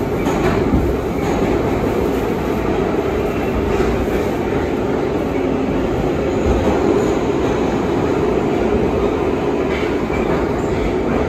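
Inside an R62A subway car under way: a steady loud rumble of wheels on rail and running gear, with a few faint clicks and a brief faint high wheel squeal about six seconds in.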